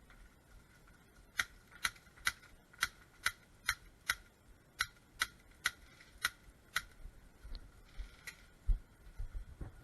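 Airsoft gun firing single shots in a steady string, about a dozen sharp cracks roughly two a second, then one more a little later.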